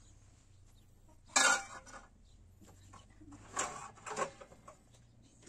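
Dishes and spoons clattering: one sharp clatter about a second and a half in, then two smaller clinks a couple of seconds later.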